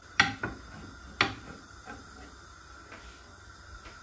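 Wooden rolling pin knocking twice, about a second apart, against a heated granite-coated flat pan as a thin sheet of yufka dough is unrolled onto it, followed by a faint steady hiss with a few light ticks.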